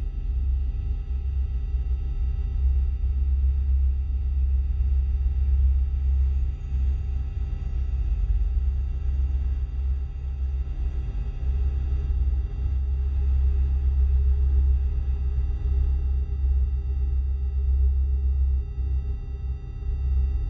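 Synthesized science-fiction UFO hover sound: a deep, wavering low drone with faint steady high tones held above it.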